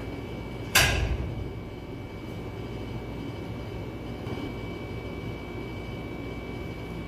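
Steady low hum of room machinery with a thin, steady high whine, broken by one sharp knock, the loudest sound, about a second in that rings off briefly.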